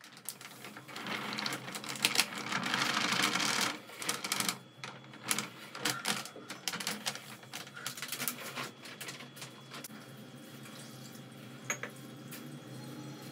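A packet crinkling as flour is poured from it into a steel bowl. The hissing pour is loudest in the first few seconds and is followed by scattered light clicks and rustles. It settles into a faint steady low hum.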